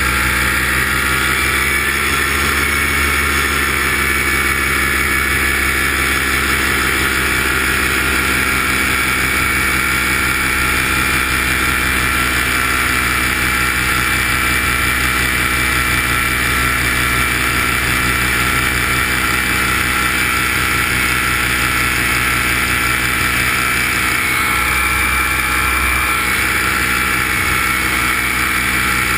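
The motor and propeller of the aircraft carrying the camera, running steadily in flight: a loud, even drone made of many steady tones, dipping slightly in pitch in the first few seconds.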